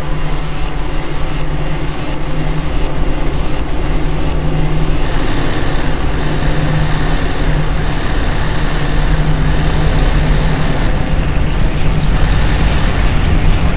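Loud, dense rumbling noise with a steady low hum, getting a little louder toward the end.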